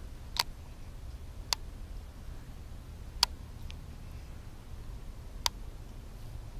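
Four sharp, irregularly spaced clicks from a baitcasting reel being handled, over a faint low rumble.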